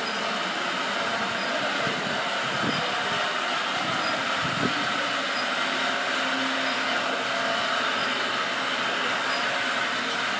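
Steady, even whooshing noise of running machinery, with a couple of faint knocks a few seconds in.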